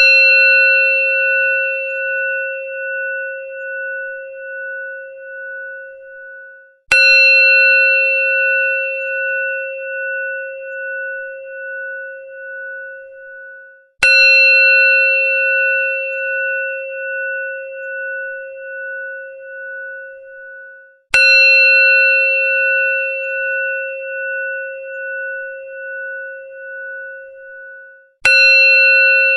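Temple bell (ghanti) struck about once every seven seconds, with four fresh strikes here. Each strike rings out in a clear tone that fades with a slow wavering pulse, and each ring is cut off sharply just before the next strike.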